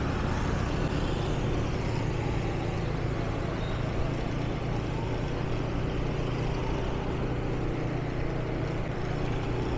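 Steady road traffic noise with a low, even engine hum.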